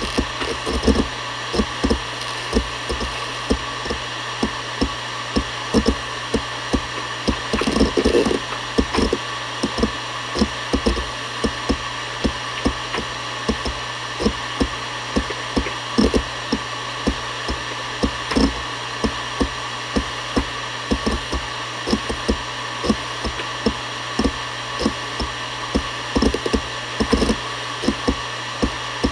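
Seagate Barracuda ES.2 ST31000340NS 7200 rpm hard drive running, its spindle giving a steady hum and whine while the heads seek with irregular short ticks, a few each second.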